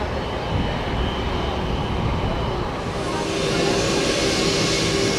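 Jet airliner engines running on the runway, a steady rumble that grows louder about three seconds in as a high whine and hiss rise and a steady hum comes in.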